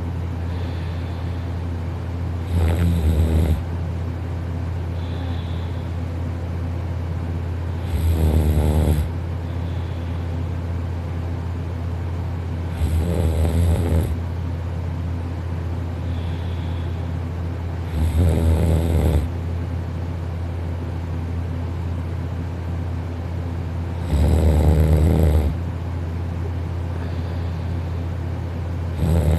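A person snoring in sleep, one rattling snore about every five to six seconds, over a steady low hum.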